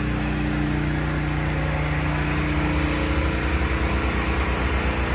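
Soft wash rig's pump running steadily while sodium hypochlorite mix is sprayed through a multi-nozzle wand. About three seconds in, one low tone drops out and a low, even pulsing takes over.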